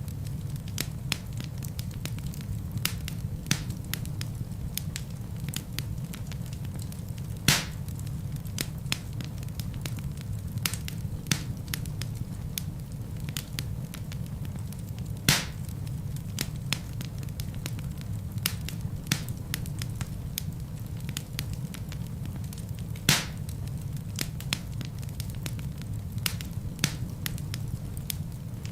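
Wood logs burning in a fireplace: a steady low rumble of flame under constant small crackles, with three louder pops about eight seconds apart.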